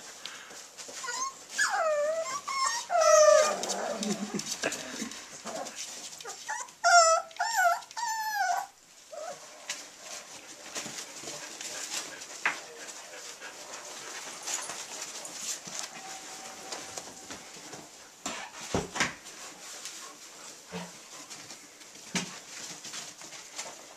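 Puppies whining in high, wavering calls, in two bouts in the first half. After that only faint scattered ticks and scuffling from puppies moving about on puppy pads.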